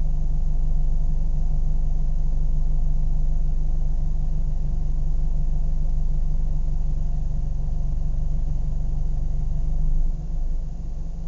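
Car engine idling with a steady, even low rumble and no revving. About ten seconds in, the sound drops noticeably in level.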